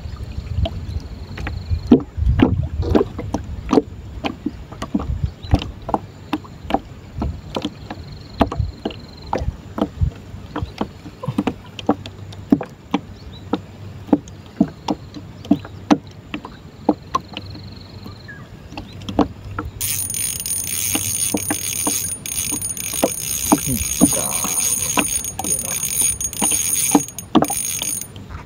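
Many small irregular knocks and taps from a wooden boat and the fishing tackle being handled in it. About twenty seconds in, a loud high buzzing starts and carries on until shortly before the end, with a few brief breaks.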